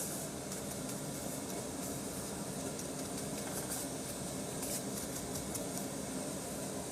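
Steady background hum like a running fan or ventilation. Faint light scuffs over it as a chicken cutlet is worked in flour.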